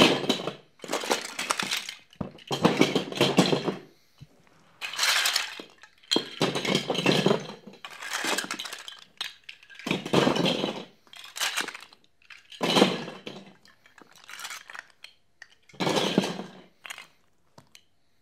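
Plastic Lego bricks clattering in about a dozen short rushes of many small clicks, as handfuls of bricks are spilled and shifted, with brief pauses between them.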